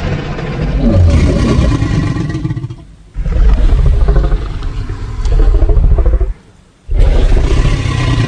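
Monster sound effects: loud, low, rasping roars and growls in three long stretches, broken by short pauses about three seconds in and about six and a half seconds in.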